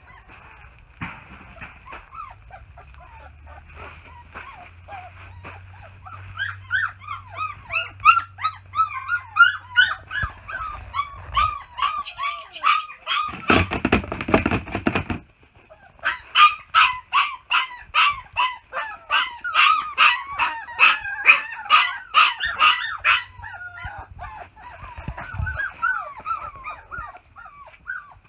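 Young puppies whining and yelping in high, sliding cries, sparse at first, then a fast run of about three cries a second in the second half. A loud burst of noise lasting about a second and a half cuts in midway.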